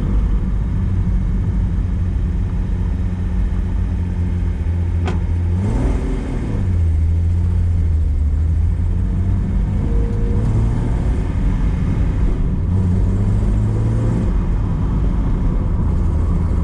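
1973 Datsun 240Z's 2.4-litre straight-six running as the car is driven on the road, with steady low road rumble. The revs rise and dip about six seconds in, then climb slowly from about ten seconds and drop back near fourteen seconds. There is a sharp click shortly before the first rise.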